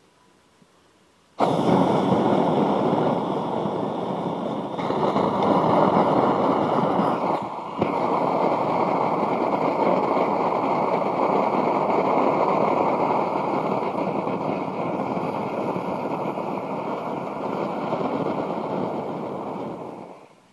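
A butane lighter heated inside a burning drinks can gives way and vents its gas as a jet of flame: a loud, steady rushing hiss of burning gas starts abruptly about a second and a half in. It dips briefly about halfway through and dies away just before the end.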